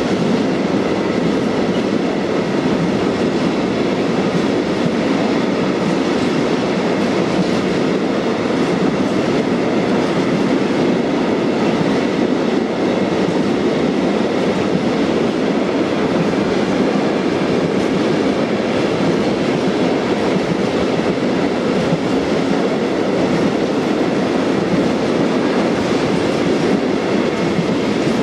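Freight train of tank wagons rolling past close by: a steady rumble of steel wheels on rail that does not let up.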